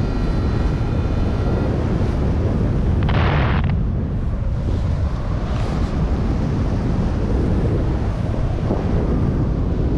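Wind rushing over the camera microphone of a paraglider in flight, a loud steady rumble. A thin steady tone sounds for the first second and a half, and a short hiss comes about three seconds in.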